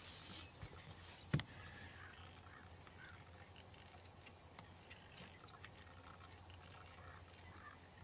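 Faint outdoor ambience with scattered distant bird calls, a brief hiss near the start, and one sharp click about a second and a half in.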